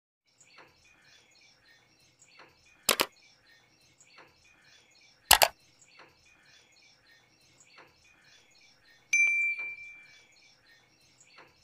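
Subscribe-animation sound effects: two loud double clicks a few seconds apart, then a bell ding about nine seconds in that rings out for about a second. Under them runs a faint background of evenly repeating chirps.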